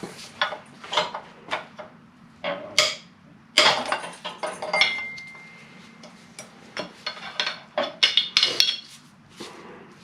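Steel hand tools clinking and knocking irregularly against metal engine parts while the cam gears come off an EJ20 engine, with a short ringing note about halfway through.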